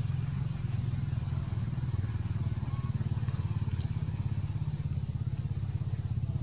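A small engine running steadily at idle, a low, even, rapid throb.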